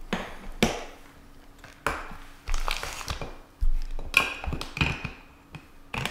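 Hands handling plastic coin packaging: clear plastic bags crinkling, with several sharp plastic clicks and taps.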